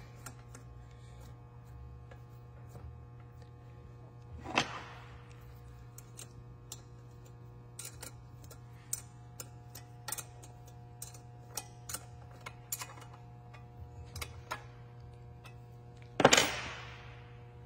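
Scattered light metallic clicks and taps as a dial-indicator holder is fitted and its nuts tightened on a Honda GX160 cylinder head, with two louder metal clanks, one about four and a half seconds in and one near the end. A steady low hum runs underneath.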